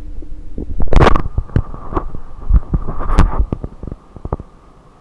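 Belly sounds picked up through a stethoscope microphone: a low rumble with a run of loud knocks and crackles starting about a second in, under a faint steady whine. The sound drops away about four seconds in.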